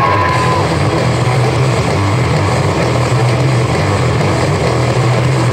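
Loud, steady din of a busy practice hall: a dense wash of noise with a low hum underneath. A music tone fades out about half a second in.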